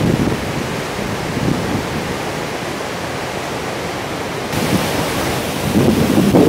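Hogs Back Falls in full spring flood: a loud, steady rush of whitewater. Wind buffets the microphone in low gusts, strongest near the end.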